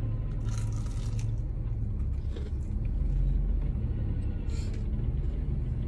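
Steady low rumble of a car's idling engine heard from inside the cabin, with a crisp bite into a flaky glazed fried pie about half a second in and quiet chewing after it.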